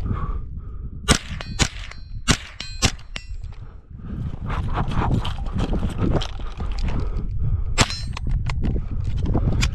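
Single shots from an HK MP5 rifle in .22LR. Four come about half a second apart early on and one more comes near the end, each with a short metallic ring.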